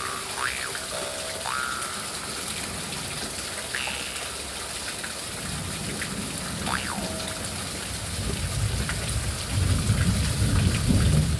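Steady rain, with a few last overtone glides from a Dan Moi L-size bass jaw harp in the first seven seconds. A low rumble builds through the second half and is loudest near the end.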